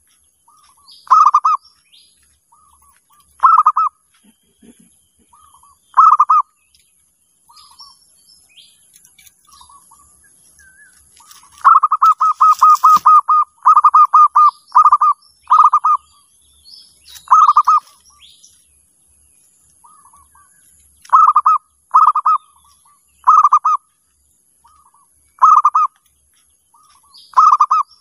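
Zebra dove (perkutut) calling: short bursts of rapid, stuttering coos, one every one to two and a half seconds, with a long fast run of them near the middle. Faint high chirps of small birds come between the calls.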